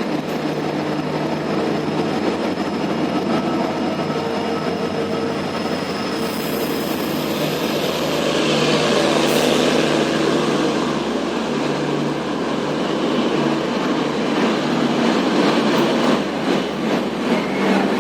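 An Indian Railways express train running into a station: steady rumble of the passing coaches. A brief high squeal comes about six seconds in, and a run of sharp wheel clicks over the rail joints fills the last few seconds.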